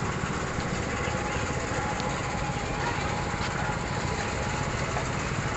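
A small engine running steadily, its rough low rumble unchanging, over general outdoor market noise.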